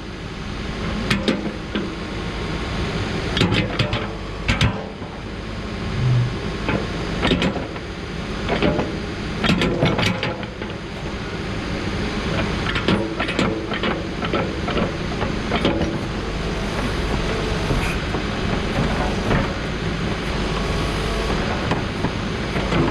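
2013 Case 590 Super N backhoe loader's diesel engine running steadily under hydraulic load, with repeated clanks and knocks from the loader or backhoe working.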